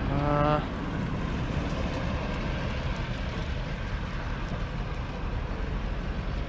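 A pickup truck driving past on the road, a steady engine and tyre rumble. A short pitched sound, about half a second long, at the very start.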